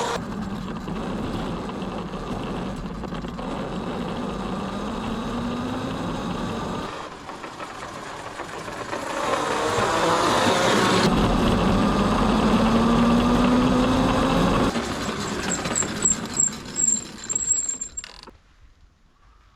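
Small electric motor of a DeWalt battery-powered motorised road cone, whining and rising in pitch as it speeds up, with rumbling noise underneath. It does this in two long runs, then gives a few knocks before the sound cuts off about eighteen seconds in.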